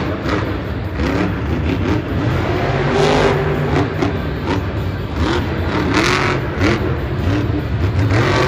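Monster truck's supercharged V8 engine revving hard, its pitch sweeping up and down over and over, with sharp louder bursts about three and six seconds in.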